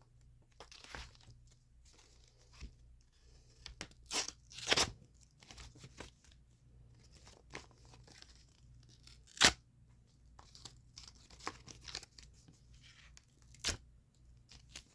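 A freshly sharpened knife blade slicing through cardboard as a sharpness test: a few short, sharp tearing cuts a few seconds apart, with fainter scraping and rustling of the cardboard between them.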